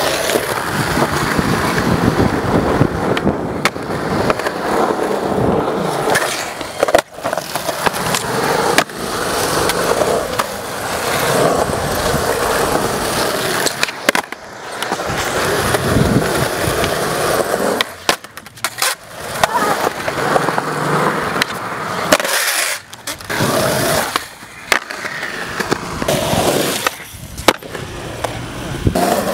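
Skateboard wheels rolling on a concrete skatepark surface, with sharp clacks now and then as the board is popped into tricks and lands.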